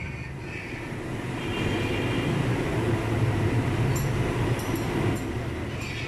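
Large iron karahi of milk at a rolling boil over a gas burner: a steady low rumbling roar, with a few faint clicks about four to five seconds in as the long metal ladle stirs.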